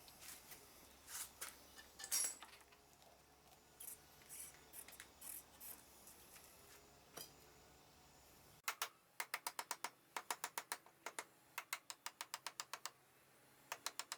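Scattered light clicks and rubbing, then a quick run of sharp, evenly spaced clicks, about four a second, stopping briefly and ending with three more clicks near the end.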